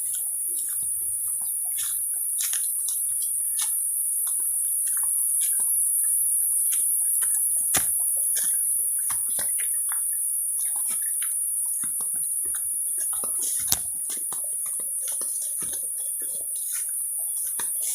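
Steady high-pitched drone of forest insects, with many scattered clicks and crackles over it and two sharper cracks, one about halfway through and one later.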